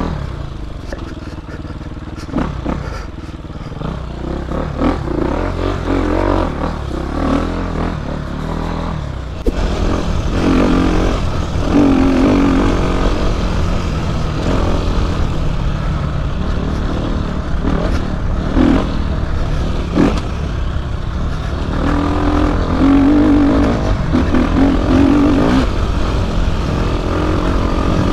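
Off-road motorcycle engine running and revving up and down under changing throttle as the bike is ridden along a dirt trail, with a few sharp knocks over the bumps.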